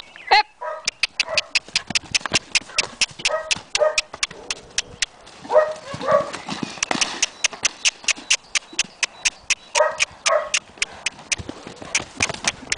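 Hoofbeats of a horse cantering and bucking loose in a round pen, a fast uneven run of sharp strikes, several a second. A few short pitched calls break in now and then.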